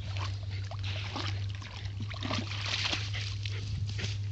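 A fox terrier splashing and wading in a shallow creek: water sloshing in many short, irregular splashes before the dog scrambles out onto the grassy bank near the end.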